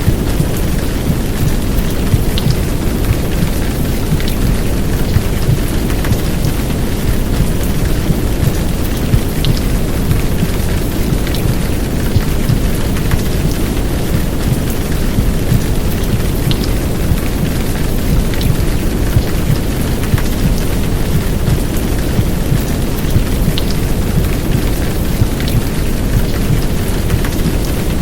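Heavy downpour rain layered over a low, muffled womb-sound recording of heartbeat and white noise, used to soothe a crying baby to sleep. A steady dense rush, heaviest in the low end, with scattered sharp drop ticks.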